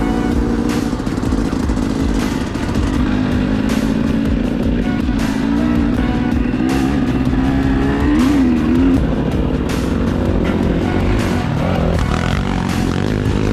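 An off-road vehicle engine running, its pitch wavering up and down, with music playing along with it.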